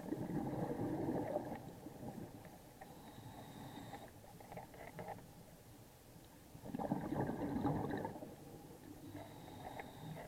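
A scuba diver's exhaled bubbles from the regulator, heard underwater as gurgling rumbles: a long burst at the start, another about seven seconds in and a shorter one near the end.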